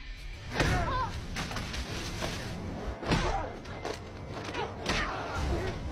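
Fight sound effects: several heavy thuds and slams of blows, about three seconds apart, with short grunts and cries over a low music bed.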